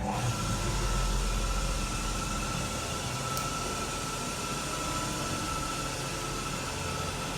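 Artico platform lift's drive motor running as the platform travels: a steady mechanical hum with a thin whine, starting suddenly and holding even throughout.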